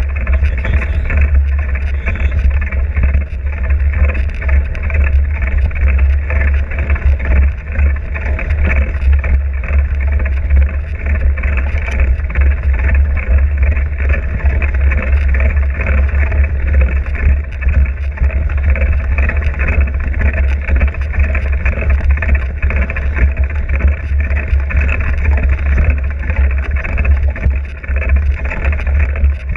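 Steady, loud low rumble of a vehicle in motion, unbroken throughout.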